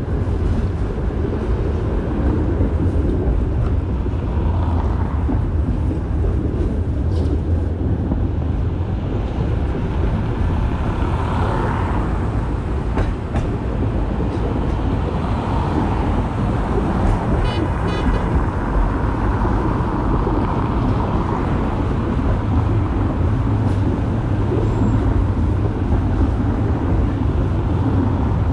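Streetcar running along street track: a steady low rumble of motors and wheels, with a brief high ringing tone about two-thirds of the way through.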